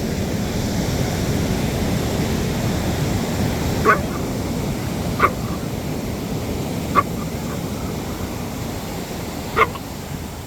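A dog barking four times, single short barks a second or two apart, over the steady wash of surf.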